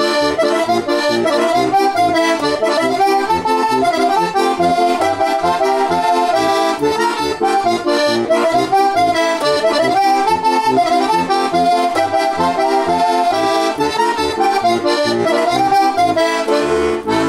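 A four-voice heligónka (Slovak diatonic button accordion by Juraj Krahulec, C-F tuning, tipo a mano brass reeds) playing a lively folk tune. The right hand carries the melody over an oom-pah accompaniment of alternating bass notes and chords from the bass buttons, closing on a held chord at the very end.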